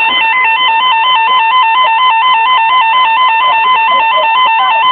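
Fire-dispatch radio alert tone: a loud electronic beep warbling rapidly between two close pitches, several times a second, heard through a narrow radio channel. It signals that a fire alarm dispatch is about to be read out.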